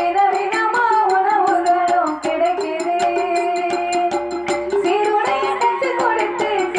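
Villu paattu bow-song music: a woman sings a wavering melody into a microphone over a steady held drone, with a quick, even beat of percussion strikes at about four a second.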